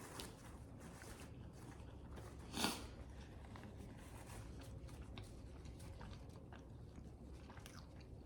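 Faint chewing and small mouth clicks of someone eating barbecue chicken wings, with one louder short bite about two and a half seconds in.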